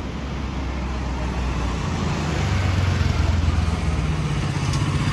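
Motorcycle engine running while riding, with wind and road noise rushing over it; the engine note grows louder about halfway through.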